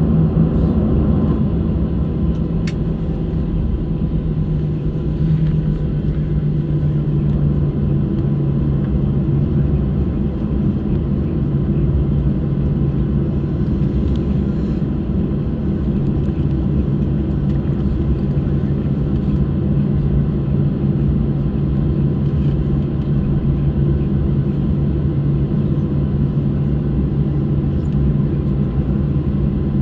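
Cabin noise of a Boeing 737-600 taxiing after landing: its CFM56 turbofans at idle give a steady rumble with a low hum.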